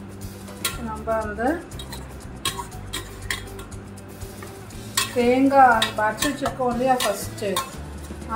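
Metal spoon stirring and scraping chicken curry in a stainless steel pot, with scattered clinks and knocks against the pot. Background music with a wavering melody comes in about a second in and again loudest in the second half.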